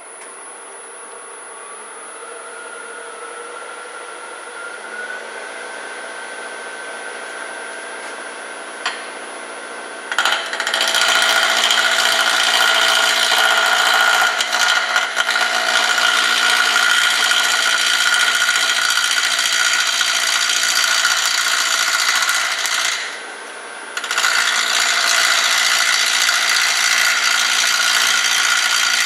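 Grizzly G0800 wood lathe spinning up with a rising whine, then running steadily. About ten seconds in, a turning tool starts cutting the spinning walnut-and-resin segmented bowl with a loud scraping noise, which stops for about a second near 23 seconds and then goes on.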